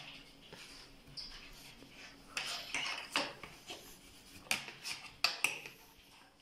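Plastic fender and its mounting bracket being handled and fitted under a fat-tire bicycle's suspension fork: rubbing and scraping with scattered sharp clicks and taps, two of the sharpest near the end.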